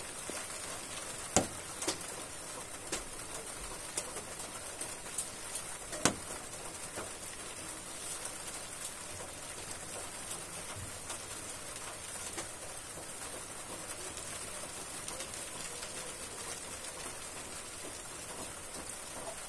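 Rain falling on a corrugated patio roof, heard from underneath: a steady patter, with a few louder single drop hits in the first six seconds, the loudest about six seconds in.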